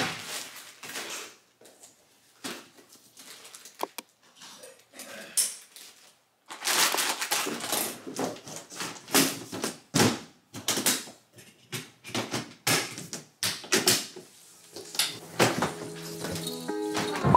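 Hands packing a hard-shell suitcase: rustling of fabric packing bags, zipping, and irregular knocks and clatters as the case is tipped shut and stood upright. Music with steady notes comes in near the end.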